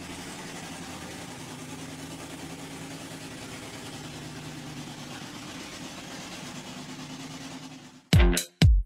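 Bigfoot 5 monster truck's engine running steadily at low speed, fading out just before the end. Loud dance music with a heavy beat cuts in about eight seconds in.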